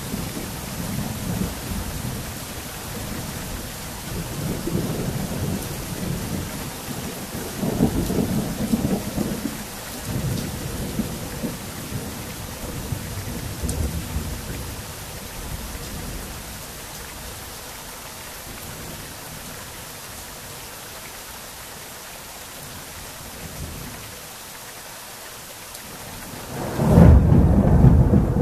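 Thunderstorm: steady rain falling, with rolling thunder. Several low rumbles come in the first ten seconds, then a quieter stretch of rain, and a loud thunder rumble breaks near the end.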